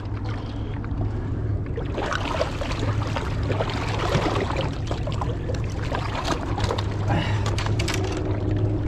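Steady rush and low rumble of swift river water churning below a dam's gates, with scattered clicks and rustles of fishing line and tackle being handled close by. A faint steady hum joins near the end.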